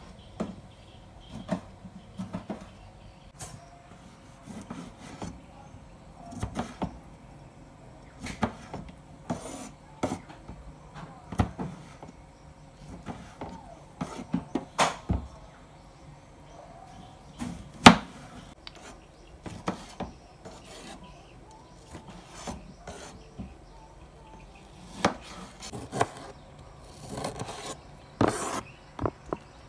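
Kitchen knife cutting unripe green tomatoes and peppers on a wooden cutting board: irregular knocks of the blade on the board, with rubbing as pieces are moved about. One knock a little past halfway is louder than the rest.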